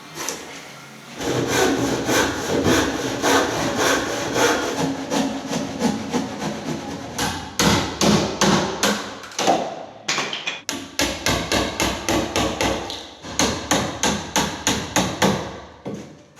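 Rapid, repeated hammer blows on timber, several strikes a second, with a brief pause about ten seconds in.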